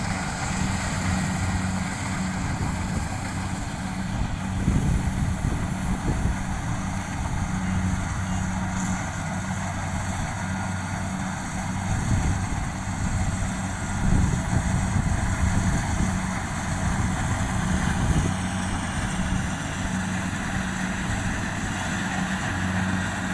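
A heavy engine running steadily, with an even low hum over a rumble.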